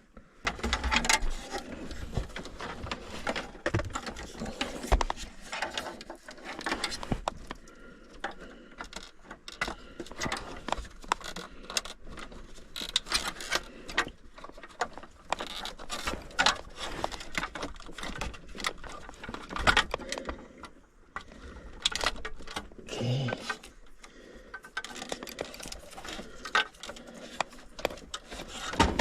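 Irregular clicks, knocks and rattles of plastic and metal parts being handled: wiring connectors, plugs and dash pieces of a car stereo install being worked by hand.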